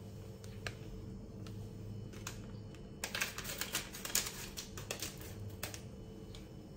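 Electric pot heating broth, the liquid ticking and crackling, with a dense run of clicks from about three to six seconds in over a low steady hum.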